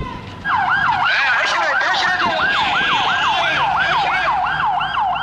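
Police vehicle siren in a fast yelp, its pitch sweeping up and down nearly three times a second; it starts about half a second in and sounds loud.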